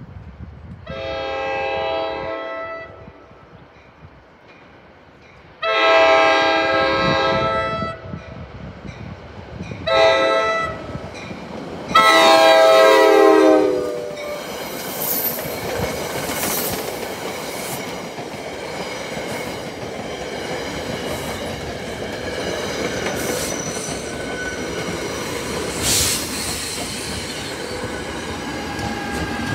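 Commuter train horn on the leading Comet V cab car sounding the grade-crossing signal: two long blasts, a short one, and a final long blast whose pitch drops as the train reaches the crossing. The electric push-pull train then passes at speed, its wheels rumbling and clattering over the rails, with the ALP-46A electric locomotive pushing at the rear.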